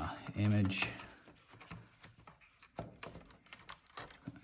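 Scattered light clicks and knocks of plastic parts as a projector's front housing panel is handled and lifted away from the chassis.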